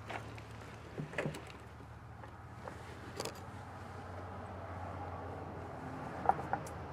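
Scattered light clicks and knocks of metal furnace parts and tools being handled while an RV furnace is put back together, a few seconds apart, over a steady low hum.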